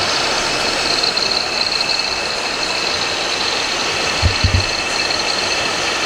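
Radio-controlled model trucks running, heard as a steady high whine over a busy hall's noise, with a few low thumps about four seconds in.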